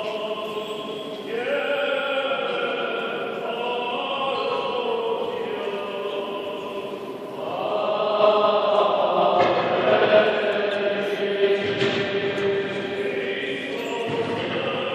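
Armenian liturgical chant sung by a group of voices in long held notes. It swells louder about halfway through.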